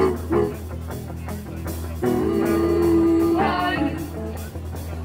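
Live rock band playing through a PA, with electric guitar, keyboard and drums. A singer holds one long note about two seconds in, then breaks into shorter sliding notes.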